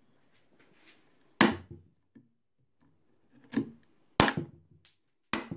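Wooden mallet striking a 1-inch bench chisel, driving it into pine to chop out the waste of a half-lap joint. Sharp, spaced knocks: the first about a second and a half in, then three or four more coming closer together toward the end, each with a short splintering rattle as the wood gives.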